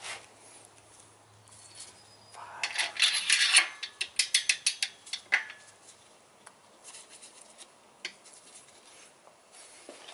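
Metal engine parts clinking and rattling as they are handled on a bare engine block. A cluster of scraping and quick sharp clicks comes about two to five seconds in, followed by a few scattered light knocks.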